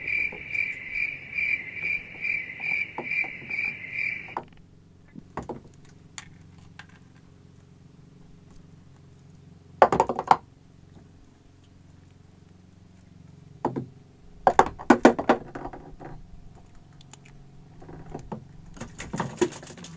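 A high chirp pulsing about three times a second for the first four seconds, cutting off abruptly. Then scattered clicks and knocks from handling a hand fishing line and hook in a wooden boat, with a few louder knocks about ten seconds in, around fifteen seconds in and near the end.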